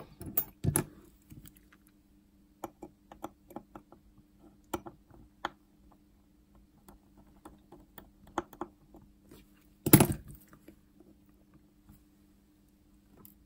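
Small, irregular clicks and taps of watchmaker's tools and fingers working on a Seiko 7S36 watch movement in its movement holder while a bridge screw is undone, with one louder knock about ten seconds in.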